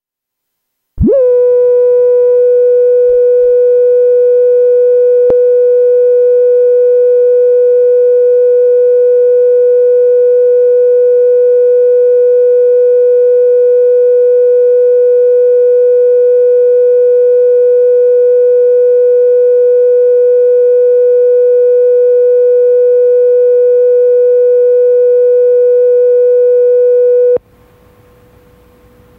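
Videotape line-up test tone played with colour bars: a single loud, steady, unwavering tone. It starts about a second in and cuts off abruptly near the end, leaving faint tape hiss.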